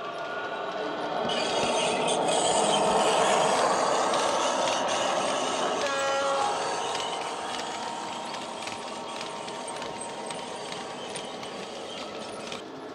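Model Class 66 locomotive's DCC sound decoder playing a diesel engine sound (the real loco's EMD two-stroke V12) through its small onboard speakers, mixed with the rattle of model wagons rolling on the track. It grows louder about a second in as the train passes close, then eases off, with a short pitched note about halfway through.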